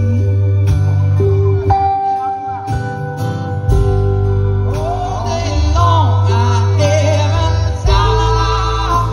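Live band playing a slow song on acoustic guitar, upright bass and drums. A voice sings over it from about halfway through.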